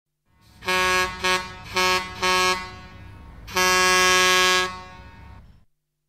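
Air horn sounding five blasts: four short ones in the first two and a half seconds, then a longer fifth of about a second. A low rumble runs beneath the blasts.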